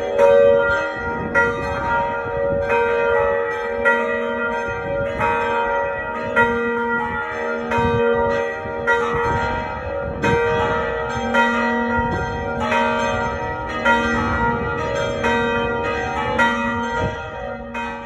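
Several church bells ringing in turn, about one stroke every second and a quarter, each stroke ringing on under the next, fading out at the very end.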